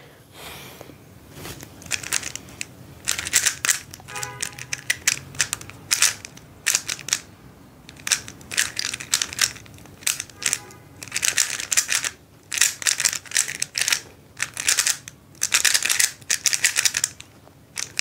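A plastic 3x3 speedcube turned rapidly by the fingers during a speed-solve: quick runs of clicking, clacking layer turns with short pauses between them.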